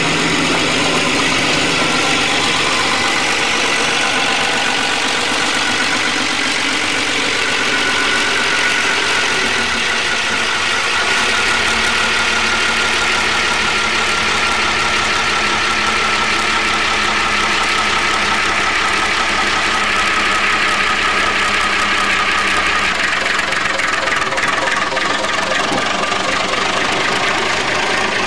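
Narrow-gauge diesel locomotive engine running steadily as it hauls a train of wooden freight wagons slowly past, with the wagons rolling on the track.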